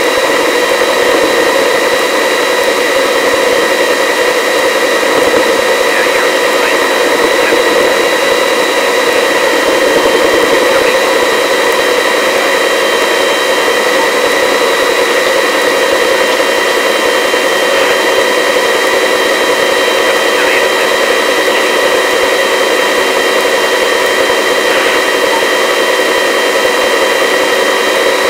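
Helicopter turbine engine and rotor running steadily in flight, heard from inside the cabin: a constant whine of several high tones over a dense rushing hiss.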